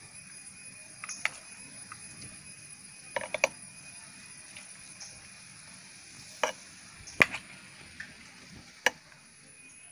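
Spoon knocking and scraping against a glass jar while chopped mango pickle is spooned and pressed into it: several sharp clinks scattered through, a quick pair about three seconds in and the loudest a little after seven seconds.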